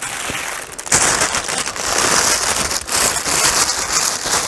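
Plastic packaging bag crinkling and rustling as it is picked up and handled, getting louder about a second in.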